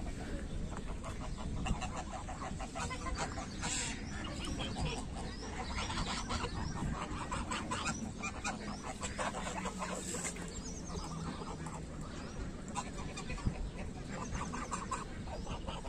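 A flock of domestic geese and ducks on a pond calling: many short quacks and honks in quick, overlapping runs, over a steady low background rumble.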